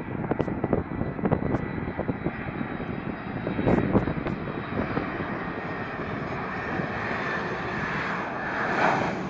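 Jet airliner on final approach, an easyJet Airbus A320-family twin-jet, its turbofan engines running with a steady rushing noise and a faint high whine that sinks slightly in pitch as it comes nearer and grows louder towards the end. Wind gusts on the phone's microphone in the first few seconds.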